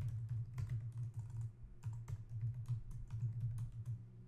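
Computer keyboard being typed on, irregular key clicks as an email address is entered, over a steady low hum.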